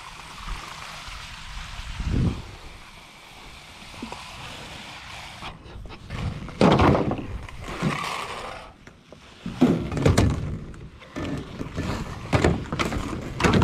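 Steady hiss of water jetting from the end of a corrugated plastic discharge hose onto grass, with one thump about two seconds in. Then, from about five seconds on, repeated clattering knocks and rustles as the corrugated hose is handled and laid into a pickup truck bed.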